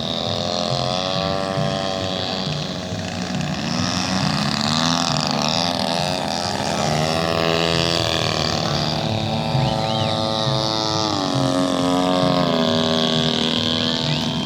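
Engines of several radio-controlled model Cessna airplanes flying together, two or more engine notes sounding at once. Their pitches waver up and down as the planes pass and change throttle, and one note drops lower about eleven seconds in.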